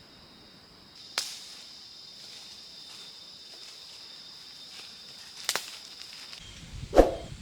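A steady high insect drone with sharp knocks about a second in and again after five seconds. The drone cuts off abruptly, low rumbling noise takes over, and a louder thump follows near the end.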